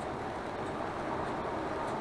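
Steady cabin noise of a MAN Lion's Coach cruising at motorway speed: an even rush of tyre, road and engine noise heard from inside the bus.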